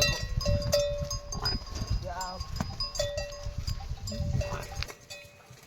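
Livestock bells on a flock of sheep clinking again and again, with a short bleat about two seconds in. A low rumble runs underneath and drops away near the end.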